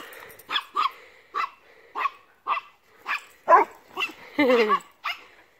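Dogs barking in play: a run of short, high barks about two a second, with one longer, lower drawn-out bark near the end.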